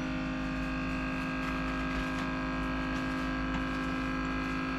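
Steady electric hum with several fixed tones, unchanging throughout.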